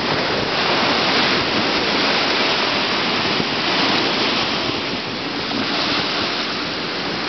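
Small ocean waves breaking and washing up onto a sandy beach, a steady rush of surf.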